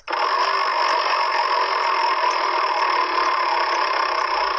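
Spinning-wheel sound effect from a children's learning app: a steady whirring noise that starts suddenly and holds evenly while the prize wheel turns, with faint ticks over it.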